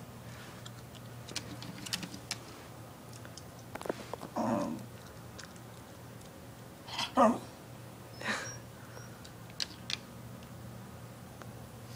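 Dogs making a few short vocal sounds, the loudest about seven seconds in, between quiet stretches with scattered light clicks.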